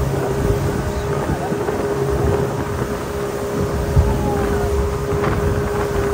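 Speedboat running fast over choppy sea: a steady engine drone with water rushing past the hull and wind buffeting the microphone, and a single thump about four seconds in.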